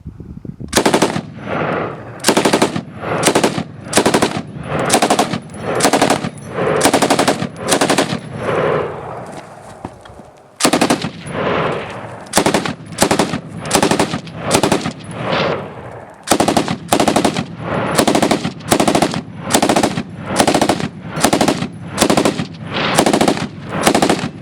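MGA SAW K belt-fed light machine gun firing a long string of short bursts, about one a second, each burst several rapid shots with a short echo after it.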